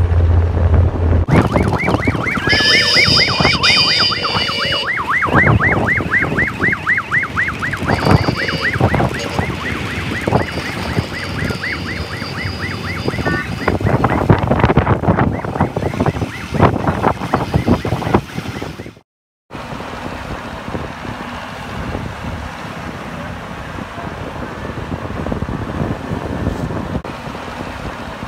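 A siren-like electronic yelp, a fast run of short rising sweeps at about five a second, over steady engine and traffic rumble. The yelp stops about halfway through, and after a brief cut only the rumble and wind noise remain.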